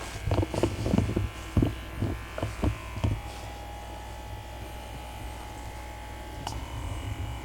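A small electric motor buzzing steadily at a low pitch, with a run of about nine dull thumps in the first three seconds.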